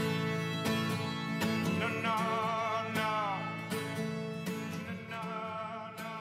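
Background music in a country style: plucked acoustic guitar with evenly struck notes and a wavering melody line that bends downward, gradually getting quieter toward the end.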